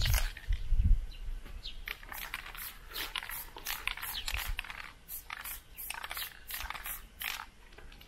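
Aerosol spray-paint can spraying in short hissing bursts, about three a second, as lines are painted onto a concrete wall. A low rumble in the first second.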